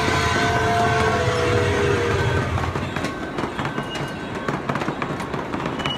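Ride-on miniature train running on its track, with a low rumble, while a long multi-note whistle sounds and fades out about two and a half seconds in. After that the wheels click irregularly over the rail joints.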